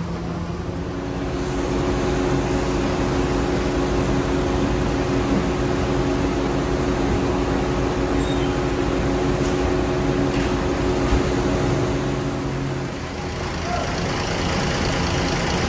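Diesel bus engine idling with a steady hum; the sound changes about thirteen seconds in, as another idling vehicle takes over.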